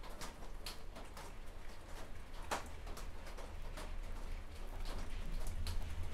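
Light, irregular clicks and ticks of a plastic paintbrush handle dabbing and scraping two-part epoxy onto a thin aluminium plate, over a low steady hum.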